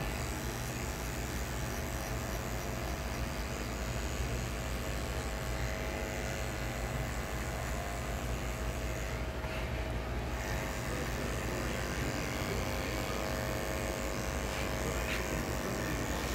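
Electric hair clippers running with a steady buzz as they cut close to the scalp for a skin fade.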